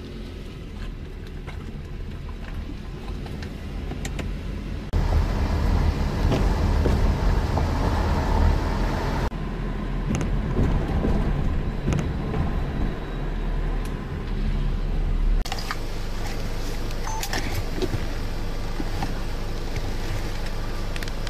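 Car driving slowly, its engine and road noise a steady low rumble heard from inside the cabin, stepping up in level about five seconds in.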